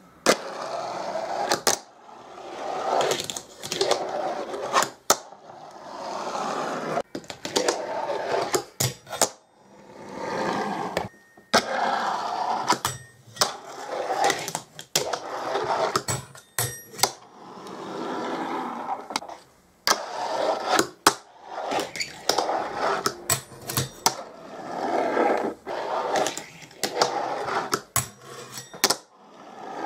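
A fingerboard rolling and doing tricks on a wooden tabletop and a square metal rail. Stretches of small wheels rolling over the wood, each a second or two long, are broken by sharp clacks as the board is popped and lands.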